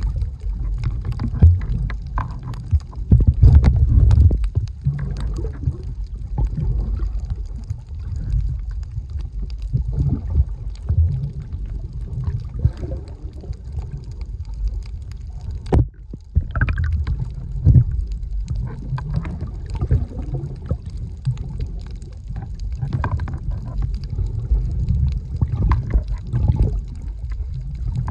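Underwater ambience heard through a camera submerged in the sea: a muffled low rumble of moving water with uneven thumps and gurgles, which briefly drops away about sixteen seconds in.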